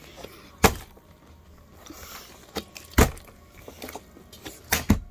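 Sharp thumps on a padded play mat: one about half a second in, one about three seconds in, and two close together near the end, with low room noise between.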